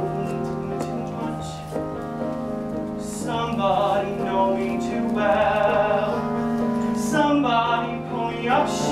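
Solo show-tune singing with piano accompaniment. The piano holds sustained chords, and from about three seconds in the voice sings long, held notes with a wide vibrato.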